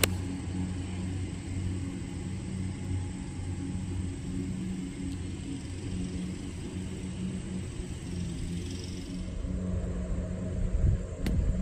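A golf iron strikes the ball with a sharp click at the very start, over a steady low mechanical hum. Near the end, a low thud with another sharp click as a club strikes the ball out of a sand bunker.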